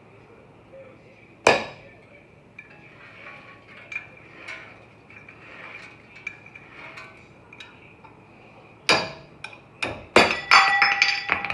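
Metal hand tools clinking and knocking on metal: one sharp knock about a second and a half in, small clicks, then a quick run of loud clanks with a short metallic ring near the end.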